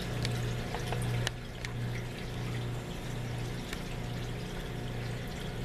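Aquarium water trickling and splashing, with small drips, over a steady low electrical hum.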